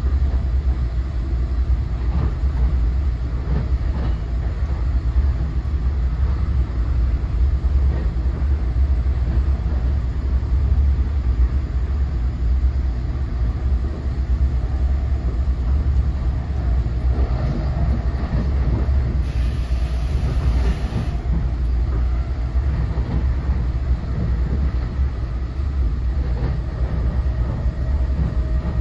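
Interior of an NJ Transit MultiLevel commuter coach at speed: a steady low rumble of wheels and running gear on the rails. About two-thirds of the way through there is a brief, brighter burst of noise.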